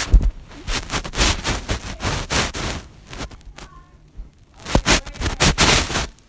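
Fidget cube being clicked and fiddled with: several bursts of dense clicking and scraping.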